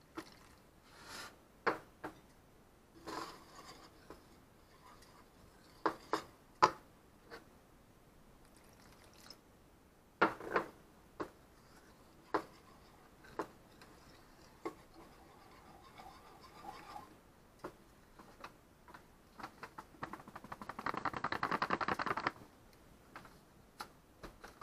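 Wire whisk clicking and scraping in a mixing bowl as water is stirred into frying mix for a thick batter, with scattered sharp taps against the bowl. Near the end comes a burst of fast whisking, about two seconds of rapid ticking, the loudest part.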